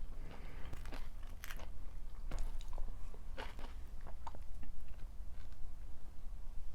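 Close-miked chewing of stir-fried napa cabbage and shredded pork, with crisp crunches about once a second that thin out near the end.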